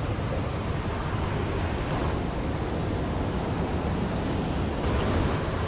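Steady rushing of river water, an even noise with no pauses.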